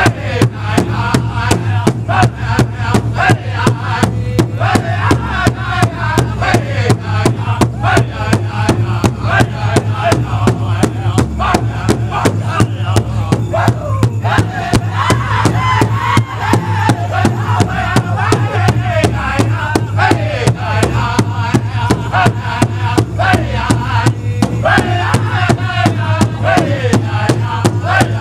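Powwow drum group singing an intertribal song: several men's voices chanting together over a large hide-headed powwow drum struck in unison with a steady, even beat.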